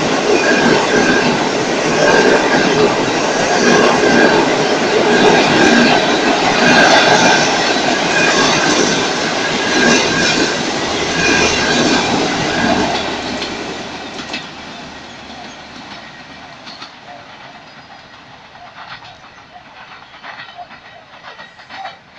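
Passenger train coaches rolling past close by, their steel wheels running loudly over the track. The sound fades away from about thirteen seconds in as the last coach goes by.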